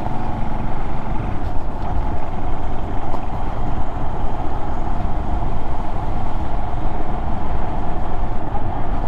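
Honda Monkey 125's single-cylinder engine running steadily while under way, mixed with a continuous rush of wind and road noise.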